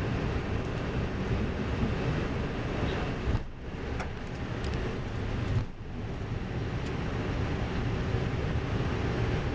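Steady rumble and rush of an Airbus A320's engines, airflow and landing gear heard inside the cockpit as the airliner rolls along the runway. The noise dips briefly twice, about three and a half and about six seconds in.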